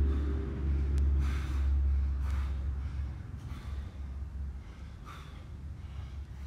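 A winded man breathing hard through a series of sharp breaths about a second apart while he rests over a loaded barbell mid-workout. Under the breathing, a low drone fades out about halfway through.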